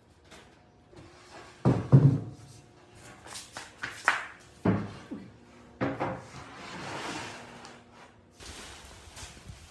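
A series of heavy knocks and thumps, the loudest two close together about two seconds in, with stretches of scraping noise between them in the second half.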